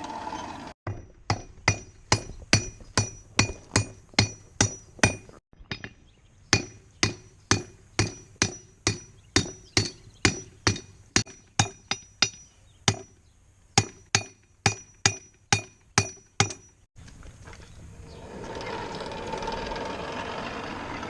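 Hand hammer striking hot steel on an anvil, a rapid run of ringing blows, about two to three a second with a couple of short breaks, while a slot punch is forged. After the blows stop, a steady rushing noise rises.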